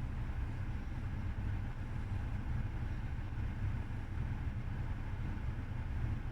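Lada Vesta's 1.8-litre four-cylinder engine running with a steady low rumble, heard from inside the car.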